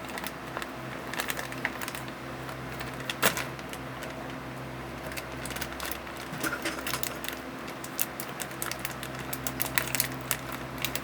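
Irregular crisp clicks and crackles from a snack bag of corn nuts being handled and the nuts being eaten, with one sharp, louder crack about three seconds in and a quick run of clicks near the end. A steady low hum runs underneath.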